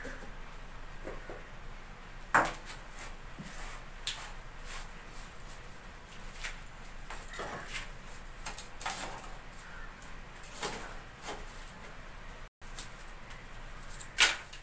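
Dry firewood sticks knocking and rustling as they are handled and pushed into the fire opening of a mud wood-burning stove, with scattered sharp clacks, the two loudest about two seconds in and near the end.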